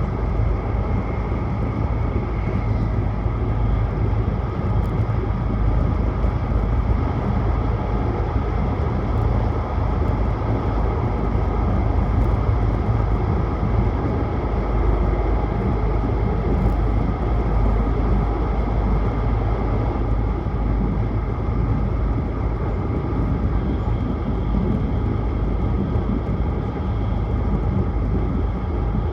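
Tohoku Shinkansen Hayabusa train running at speed, heard from inside the passenger cabin: a steady, unbroken rumble and rush of running noise.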